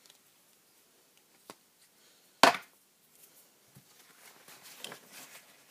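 A single loud, sharp knock about two and a half seconds in: the crafter's chair being bumped. After it, light clicks and rustling of gelato crayons being handled on the table.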